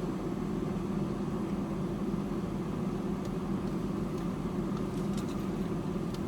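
Steady hum of a parked car idling with its air conditioner running, with a few faint ticks over it.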